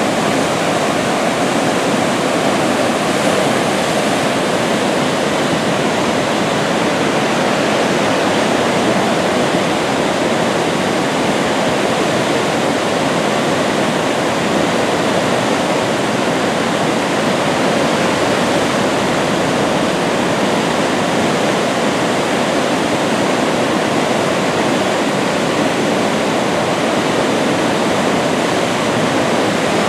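A flooded river pouring over a low mill dam: a steady rush of churning brown whitewater.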